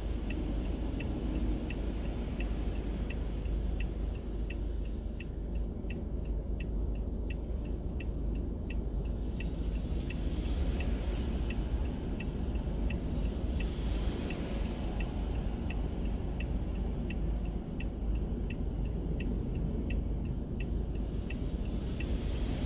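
A vehicle's flasher ticking evenly about twice a second over a steady low rumble, heard from inside the cab; the hiss of tyres on the wet road swells twice as cars pass, about ten and fourteen seconds in.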